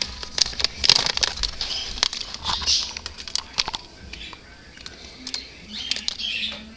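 A cockatiel moving about inside a cupboard full of food: irregular sharp taps and clicks of beak and claws, with a few short bursts of rustling.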